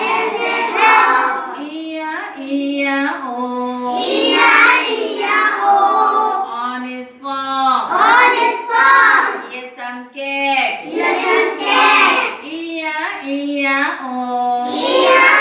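Children singing together in chorus with a woman's voice leading, a children's song sung in short phrases without instruments.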